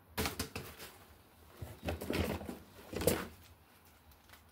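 Close rustling and scuffing handling noise in three short bursts.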